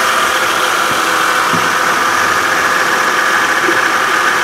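2013 Kia Sorento's 3.5-litre V6 idling steadily with its serpentine belt and pulleys turning, giving a steady whirring noise. The owner traces the noise to a worn idler pulley.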